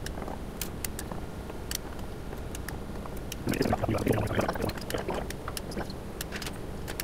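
Small sharp metal clicks and ticks of a screwdriver working screws out of a cryostat's metal radiation shield, scattered irregularly, over a steady low hum.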